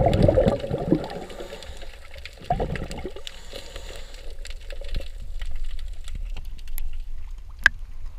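Underwater sound through a GoPro's waterproof housing: bubbling water rushing past in the first second and again about two and a half seconds in, then a low rumble with many scattered clicks and one sharper click near the end.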